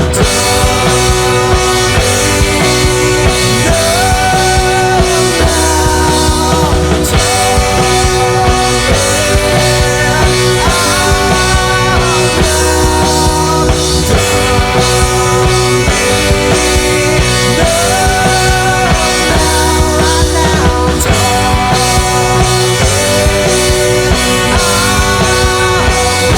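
Psychedelic rock played by a full band: drum kit, guitar and bass under a lead melody that slides up and down in pitch.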